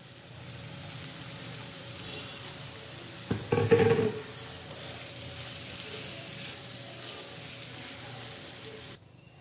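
Poha and fried vegetables sizzling steadily in oil in a kadai while being stirred with a spatula, with a short louder burst of stirring noise about three and a half seconds in. The sizzle cuts off abruptly near the end.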